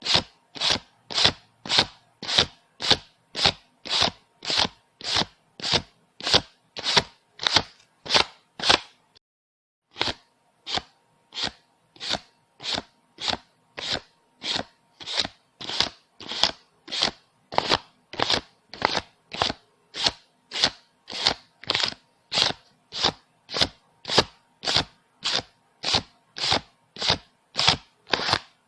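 Paper banknotes being counted by hand, each bill flicked off the stack with a short crisp rustle, about two and a half a second in an even rhythm. The counting stops for about a second near the middle, then picks up at the same pace.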